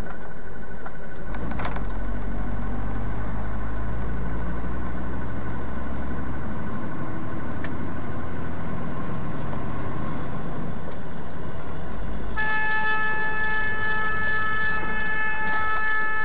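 Engine and road noise heard from inside a moving vehicle's cab, a steady low rumble. About twelve seconds in, a vehicle horn sounds as one steady, unwavering chord held for about four seconds.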